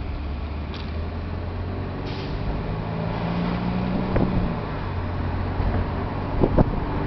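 Mercedes-Benz SLK's engine accelerating, heard from inside the cabin over road and wind noise; the engine note climbs and then drops back about four and a half seconds in. A couple of short knocks near the end.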